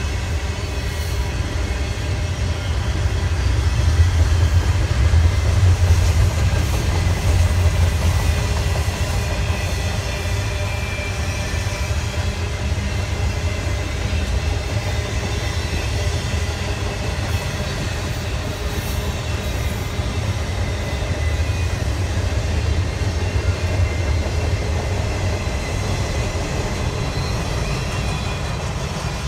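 Double-stack intermodal freight cars rolling past on steel rails: a steady, heavy low rumble of wheels on track, with thin high wheel squeal over it. It is loudest a few seconds in and eases a little near the end as the train's tail approaches.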